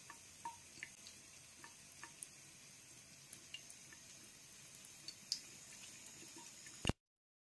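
Faint trickle of a thin stream of tap water from a bathroom faucet running into a sink, with scattered small ticks and drips. It cuts off abruptly near the end.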